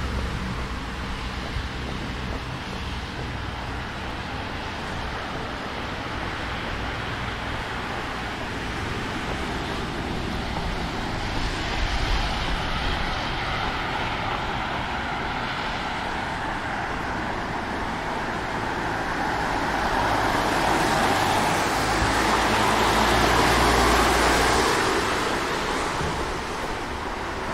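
Street traffic noise: cars driving past. One passes close near the end, its sound rising to a peak and then fading.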